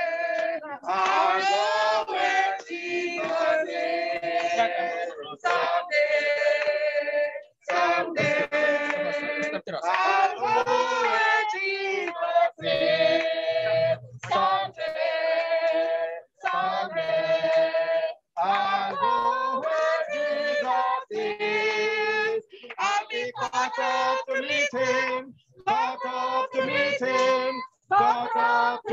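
A group of people singing together, women's voices leading, in sung phrases with short breaks between them.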